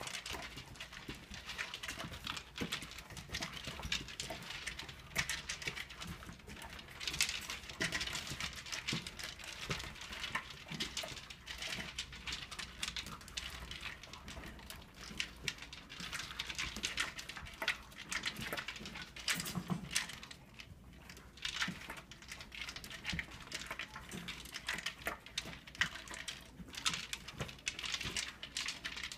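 Two puppies eating dry kibble from plastic slow-feeder maze bowls: a steady run of rapid, irregular clicking and rattling as kibble knocks against the plastic.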